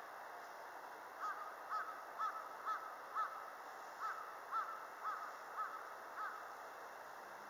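A bird calling in two runs of about five short calls each, every call rising and falling in pitch, about two a second, over a steady hiss.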